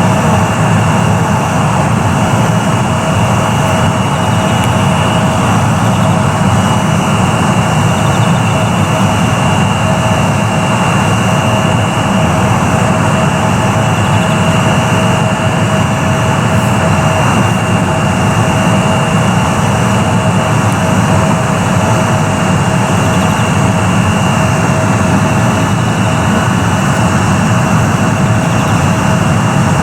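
Jet airliner engines running steadily on the ground: a constant rush with a steady whine held at one pitch.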